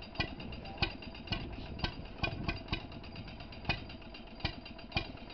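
Petter M type Little Pet two-stroke petrol stationary engine running, with sharp firing bangs coming unevenly, roughly one to two a second, over a steady mechanical clatter.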